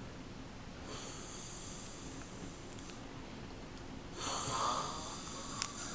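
A person snoring in their sleep: two long, noisy breaths, the second one louder, starting about four seconds in. A short sharp click near the end.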